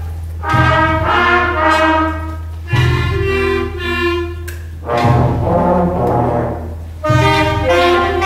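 Student concert band playing, brass to the fore, in loud phrases that each start with a sharp attack about every two seconds.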